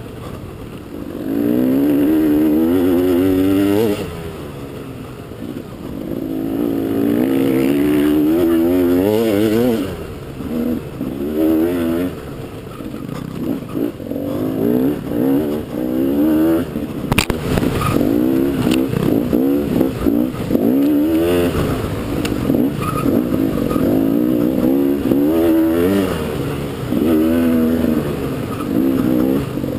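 Dirt bike engine recorded on board, revving hard and easing off again and again as the bike is ridden through the gears, its pitch sweeping up with each burst of throttle. About 17 seconds in there is a sharp knock.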